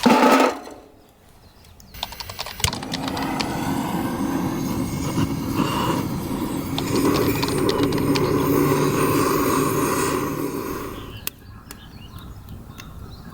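Straw burning fiercely on a campfire, a dense crackling and hissing for about nine seconds, the heat for straw-searing bonito; it drops away abruptly near the end.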